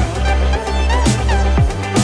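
Electronic background music with a deep bass, low notes that slide downward, and a sharp hit about once a second.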